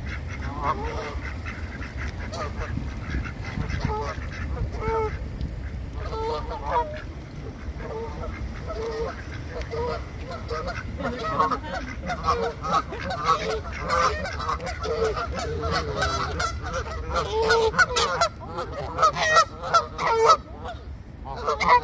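Canada geese honking: repeated calls, spaced out at first, then coming in quick, louder runs over the second half, over a steady low rumble.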